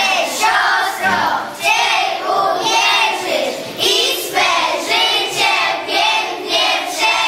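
A group of young children singing together in a steady rhythm, a song from a school nativity play.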